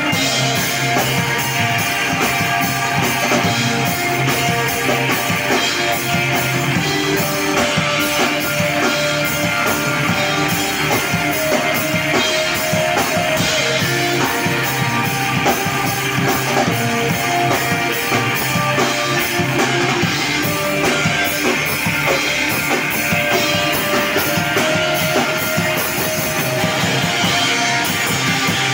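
Screamo band playing live: distorted electric guitars, bass guitar and drum kit, loud and unbroken.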